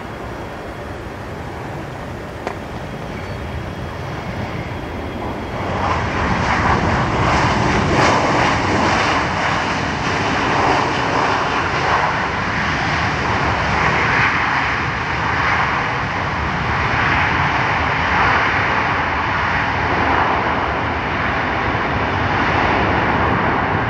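Boeing 737 airliner's jet engines during its landing roll, a steady rushing noise that grows much louder about six seconds in and stays loud.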